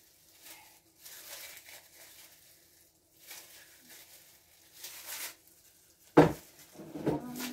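Kitchen handling sounds: soft rustling several times, then a sharp knock about six seconds in followed by a short clatter.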